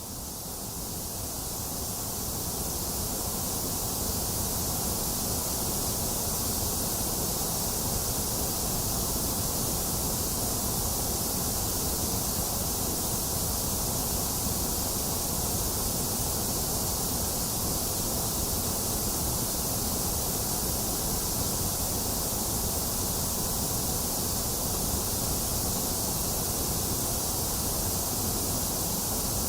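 Steady white noise hiss, fading up over the first few seconds and then holding even, with no change or events.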